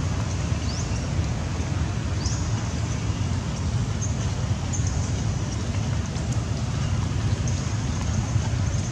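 Steady outdoor background rumble and hiss, heaviest in the low end, with a few faint short high chirps scattered through it.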